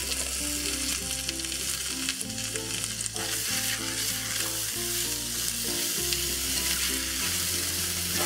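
Chayote squash and tofu sizzling in hot oil in a wok, the food shifting as the wok is given a quick toss around the middle. Background music with a steady bass line plays underneath.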